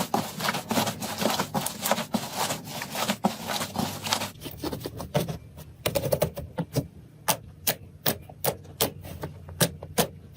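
Slime being squeezed and pressed by hand: a dense run of crackling clicks, then, from about four seconds in, sparser sharp pops and clicks a few times a second.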